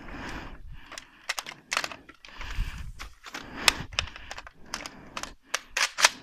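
A quick, irregular run of about a dozen sharp clicks and snaps over rustling and movement noise, loudest near the end.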